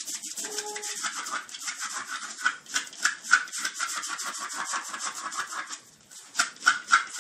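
A small dog digging at a bristle doormat, its claws scrabbling over it in a fast, continuous scratching. The scratching breaks off briefly near the end, then starts again with sharper strokes.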